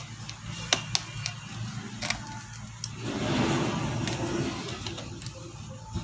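Small sharp clicks and taps of a screwdriver and tiny screws being taken out of a laptop's motherboard and set down on a bench, several in the first three seconds. About three seconds in, a longer rustling, scraping noise of hands handling the laptop.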